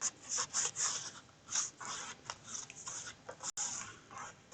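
Paper cardstock rustling and rubbing in irregular short scrapes as pieces are handled and pressed down to glue them.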